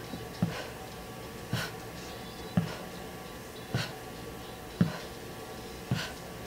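A person exercising, breathing out sharply in a steady rhythm of about one exhale a second with each twist of the bicycle crunches.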